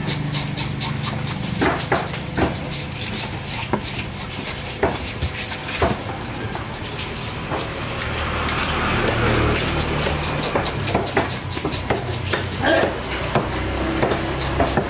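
Large knife cutting tuna loin into steaks, its blade knocking at irregular intervals on a thick wooden chopping block, over a steady low background hum.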